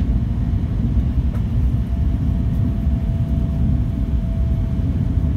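Tohoku Shinkansen train running at speed, heard from inside the passenger cabin as a steady low rumble. A faint steady tone joins about two seconds in.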